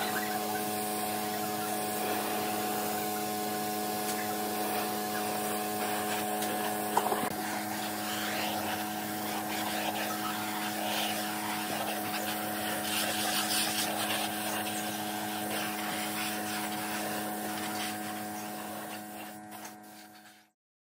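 Air spray gun hissing steadily as it sprays finish onto a wooden chair, with a steady hum underneath. The sound fades out near the end.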